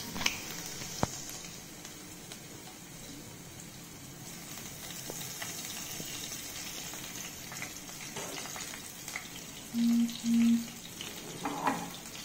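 Chopped garlic, ginger and green chillies frying in hot oil in a kadhai with whole tempering spices: a steady sizzle with a few light clicks. About ten seconds in come two short, low buzzes of about half a second each, the loudest sound here.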